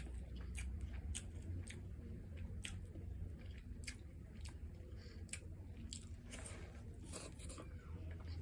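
Close-miked chewing of a mouthful of rice and tomato stew, with irregular wet mouth clicks and smacks one or two a second, a cluster of them about seven seconds in, over a steady low hum.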